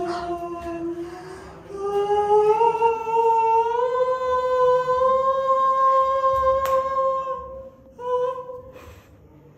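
A voice humming long held notes, the pitch slowly climbing, the longest held for about five seconds before it breaks off, with a brief note after. It rings in a small stone chamber.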